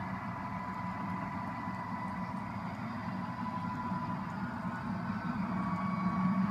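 Model trains rolling past on a layout track: a steady low rumble and hum of the locomotive motors and wheels on the rails, with faint steady whines above it. It grows a little louder near the end as a second set of locomotives comes up close.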